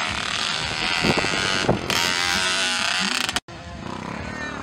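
Small mini motocross bike engines buzzing and revving on a dirt track. The sound drops out sharply for a moment about three and a half seconds in, then carries on a little quieter.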